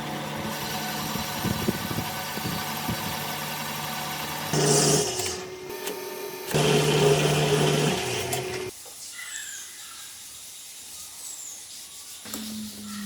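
A power tool's motor running with a steady hum, louder in two short stretches around the middle, then stopping about two-thirds of the way through, leaving quieter scratching.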